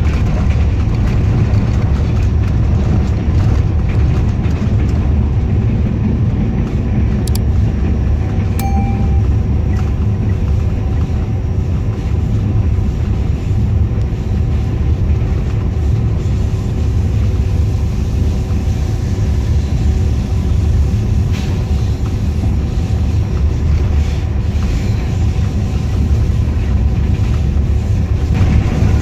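GEU-20 diesel-electric locomotive under way, heard from beside its cab: a steady low rumble of the engine and wheels on rail, with a faint steady engine hum over it.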